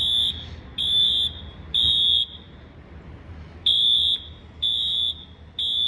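Fire alarm sounder beeping a high-pitched tone in the temporal-three evacuation pattern: three half-second beeps, a pause, then three more. It is sounding for a sprinkler waterflow alarm test.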